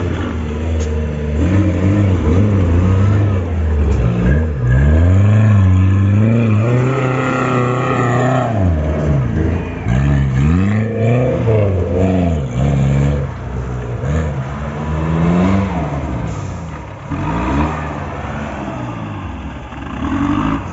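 Off-road 4x4 jeep engines revving hard in repeated rising and falling bursts as the jeeps claw up steep dirt slopes under load.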